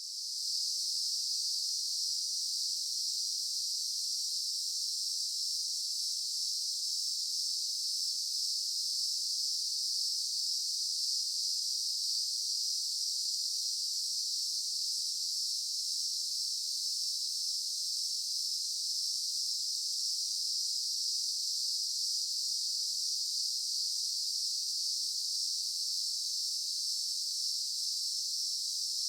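Daytime insect chorus: a dense, steady, high-pitched buzzing drone from many insects, with no let-up or change.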